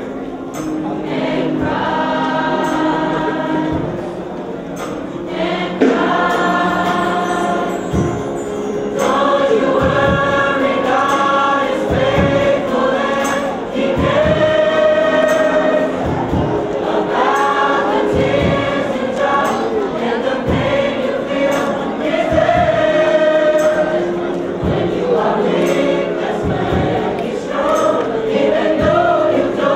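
A choir singing, with long held notes and a steady beat underneath.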